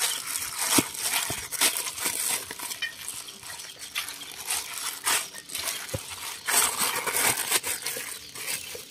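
Plastic-gloved hands kneading mashed breadfruit dough with crispy-fry flour in a stainless steel bowl: an irregular run of squishing, glove crinkling and scraping, with short knocks of the dough against the metal bowl.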